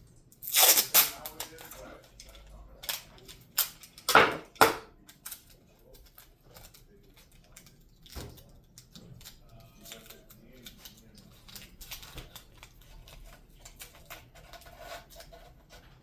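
Sharp knocks and clicks from handling hard material and tools: two loud clusters in the first five seconds, then lighter scattered tapping.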